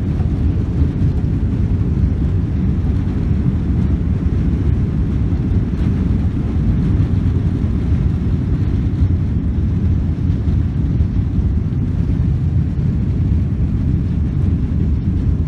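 Steady low rumble of airliner cabin noise inside a Boeing 777-300ER, from its engines and the air rushing past the fuselage, holding an even level throughout.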